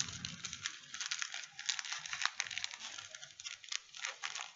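Light, irregular clicks, taps and rustling of small coil-building tools and wire being handled and packed by hand into a carrying case.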